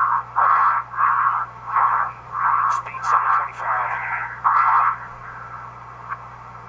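Radio link from a skydiver's pressure-suit helmet microphone in freefall: thin, muffled, unintelligible voice sounds in short, evenly spaced bursts about every 0.7 s, with crackling clicks and a steady low hum under them. The bursts stop about five seconds in.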